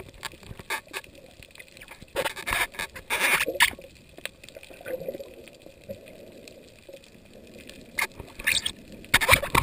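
Underwater sound picked up by a camera beneath the sea: a muffled water background with scattered faint clicks, broken by loud rushing hisses of water about two and three seconds in and again twice near the end.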